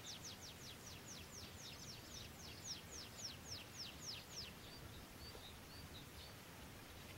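A small bird singing a long, fast series of falling whistled notes, about three a second, that stops about four and a half seconds in; a few faint short chirps follow.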